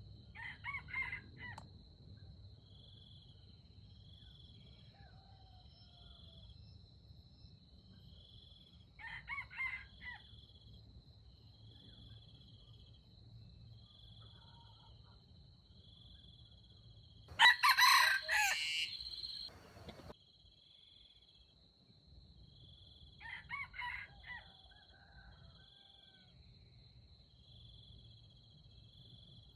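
Red junglefowl crowing four times: a short crow near the start, another about 9 s in, a much louder, nearer one about 17 s in, and a fainter one about 23 s in. A steady high insect buzz with regular pulsing chirps runs underneath.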